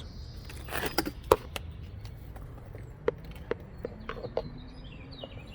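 Scattered light clicks and knocks of hand tools on metal while loosening fittings on a motorcycle's carburetors, with one sharper knock about a second in.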